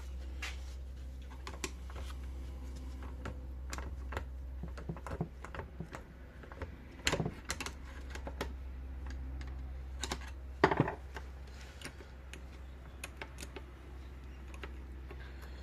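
Irregular small clicks and taps of tools and metal parts being worked on an ATV brake caliper to free a stuck pad, with louder knocks about 7 s and 10.5 s in. A steady low hum runs underneath.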